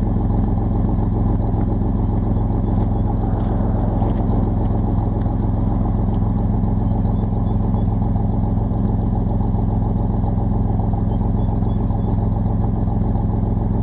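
Chevrolet S10's 4.3-litre V6 idling steadily through a 28-inch Thrush glasspack with no catalytic converter, 2.5-inch pipe all the way, heard right at the tailpipe.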